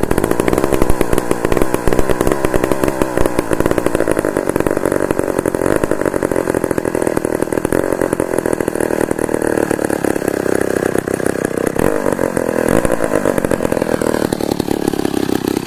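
Vintage McCulloch 140 chainsaw's two-stroke engine running loud and steady just after a cold start.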